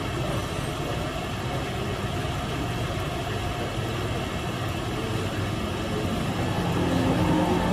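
Steady low mechanical hum of machinery running, growing a little louder near the end.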